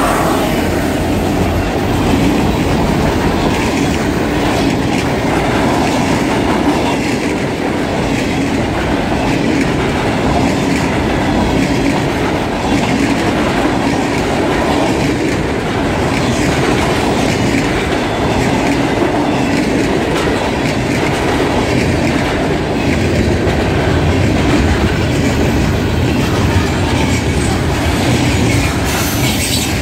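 Freight train cars rolling past close by: a loud, steady rumble of steel wheels on the rails with a regular clatter repeating about once a second.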